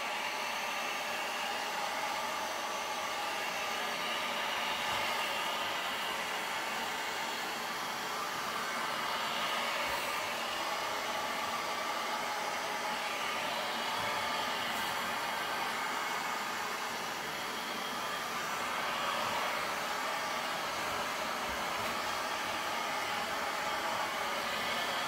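Handheld heat gun running steadily, its fan blowing hot air over wet acrylic pour paint to pop the silicone oil into cells.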